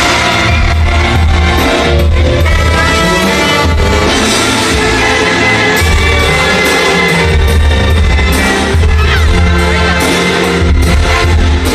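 Live Mexican banda music played loud: a tuba's pulsing bass line under brass and drums, with a singer's voice.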